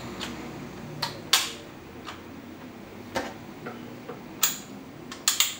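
Sharp metallic clicks and clacks from the bolt action of a Marushin 6mm Kar98K shell-ejecting airsoft rifle being handled. There are about eight irregular clicks, the loudest about a second and a half in, and a quick cluster of three near the end.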